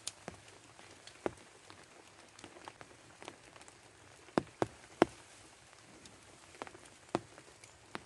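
Scattered sharp clicks and crinkles of a plastic raincoat and a handled stick snare, with light rustling of grass, as a person moves and resets a bird trap. The three loudest clicks come close together about halfway through.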